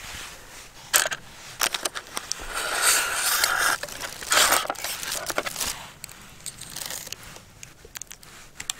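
A metal pan gripper and a nonstick camping frying pan being handled: a few sharp metallic clicks, then scraping and rustling as the pan is gripped and moved, with a few more short clicks afterwards.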